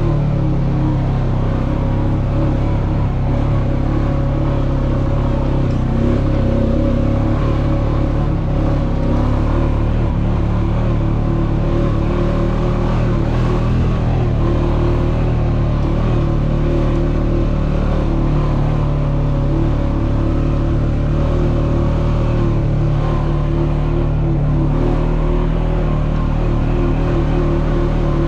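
ATV (quad bike) engine running steadily under way, at an almost constant pitch.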